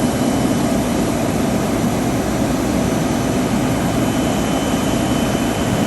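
Jet airliner engines running steadily: an even, continuous noise with a faint high whine over it.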